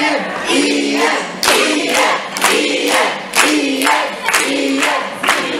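A group of voices singing a short repeated tune together, with hands clapping along in time about twice a second.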